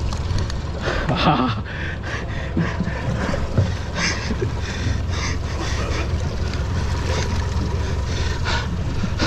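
Seawater sloshing and splashing against the side of a small panga in short irregular bursts, over a steady low rumble.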